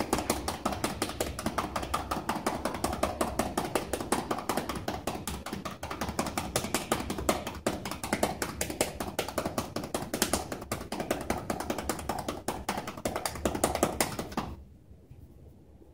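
Manual chest percussion: a therapist's cupped hands clapping rapidly and evenly on a patient's bare back to loosen mucus in the lungs. The clapping stops abruptly about a second and a half before the end.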